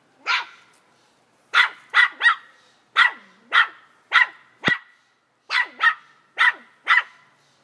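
A toy-breed puppy barking during play: about a dozen short, sharp, high barks in uneven bursts, some in quick pairs and triples.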